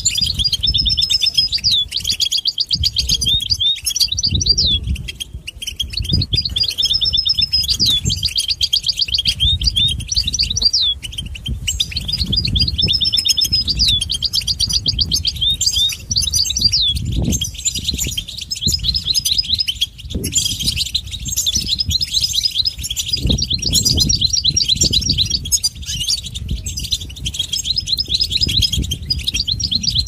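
Goldfinch singing: long runs of fast twittering and trills, with similar phrases returning every few seconds, over a steady low rumble.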